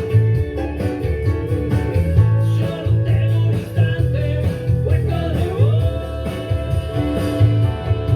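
Music led by a guitar, with notes that bend in pitch over a steady bass line.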